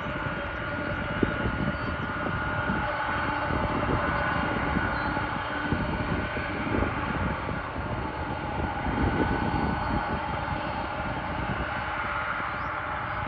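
Boeing 747-400 freighter's four jet engines running at taxi power: a steady jet whine over a broad rumble.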